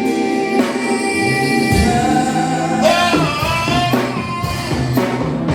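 Live gospel worship song: a singer holds and bends long notes over guitar, bass and drums.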